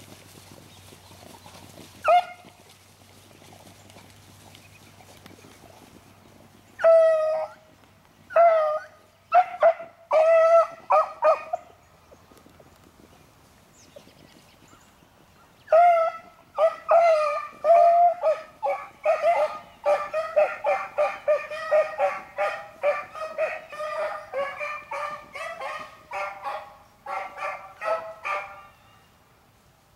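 Beagles baying on a rabbit's scent. A single cry comes about two seconds in, then a few spaced howls, and from about a third of the way through, rapid overlapping baying runs nearly to the end as the hounds carry the track.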